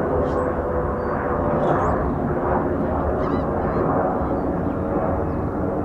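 Jet airliner engines running with a loud, steady roar that carries faint steady tones within it. A few short, faint bird chirps sound above it.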